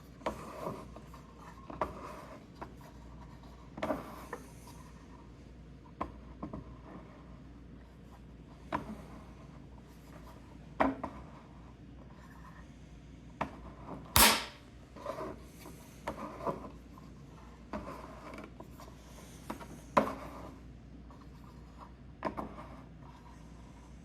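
Irregular clicks and knocks of hard parts being handled and set in place, about a dozen spread across the stretch, with one much sharper, louder knock about 14 seconds in.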